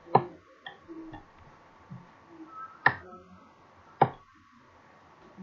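Computer mouse clicks: three sharp single clicks, the last two about a second apart, against a quiet room.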